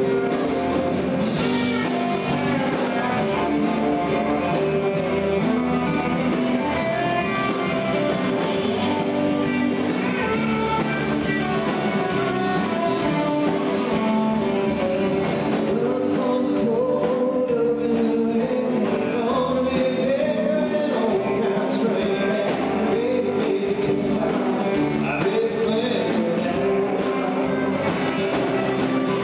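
A country-rock song: a band with guitar playing under a lead singer.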